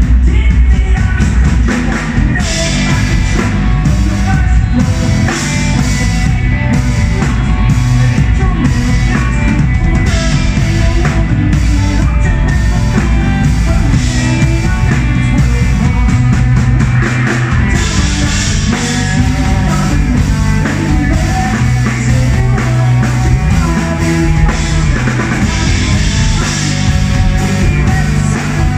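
Rock band playing live and loud: lead vocals over electric guitar, bass guitar and drum kit.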